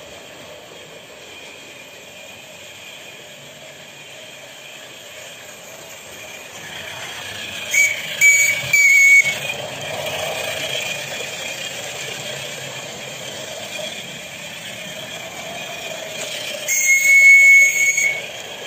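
Live-steam Märklin BR 89 model steam locomotive running with a steady hiss of steam. Its new whistle gives three short toots about eight seconds in and one longer blast near the end.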